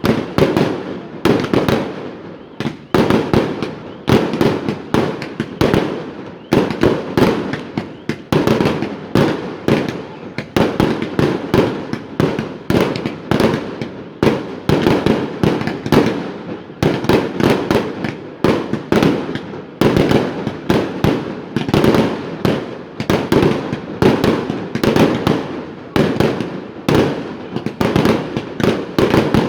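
Fireworks display: a rapid, continuous barrage of aerial shell bursts and crackling bangs, many a second.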